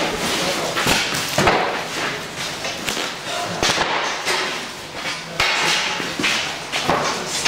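A handful of sharp knocks and thuds, about five, spread over a few seconds, with indistinct background voices.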